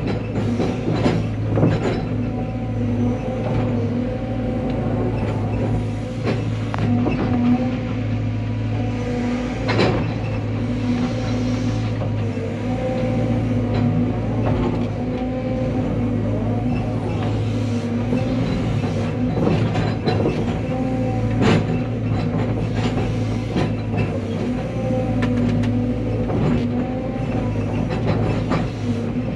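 Cat 320 excavator's diesel engine running steadily, its pitch dipping and rising slightly, with scattered sharp metallic knocks and clanks.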